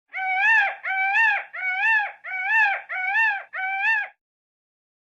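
Indian peafowl (peacock) calling: six loud calls in quick succession, each about two-thirds of a second long, rising slightly and then dropping away at its end.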